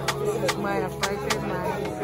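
Background music: a hip-hop style track with a vocal line over a steady beat of sharp percussion hits.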